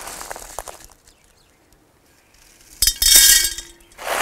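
Expanded clay pebbles (drainage balls) rattling and clinking as they are handled. A rattle at the start dies away by about a second in, and after a quiet stretch a louder rattle comes about three seconds in and again near the end.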